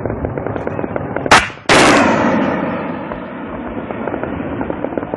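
Shoulder-fired anti-aircraft missile launching close by: a sharp blast, a split-second gap, then a second loud blast that trails off into a fading rush over about a second and a half. Rapid crackling gunfire goes on underneath throughout.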